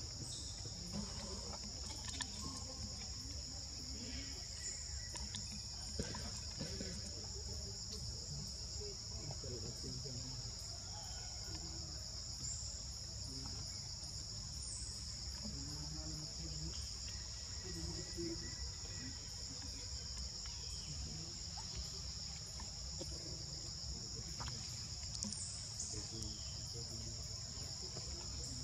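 Steady chorus of insects: a continuous, unchanging high-pitched drone, over a low rumble.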